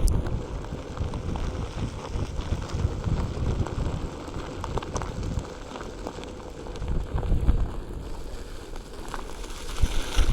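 Wind buffeting the microphone over the rumble of a Onewheel rolling on its single wheel, with scattered small ticks and a faint steady hum.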